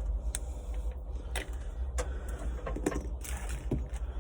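Metal parts of a shift knob and its collar clicking and knocking against a truck's shift lever as they are fitted by hand: about six scattered sharp clicks, over a steady low rumble.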